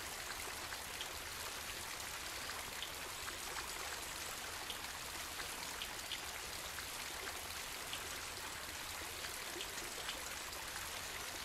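Water trickling and splashing into a garden koi pond, a steady rush of moving water with faint, irregular droplet plinks.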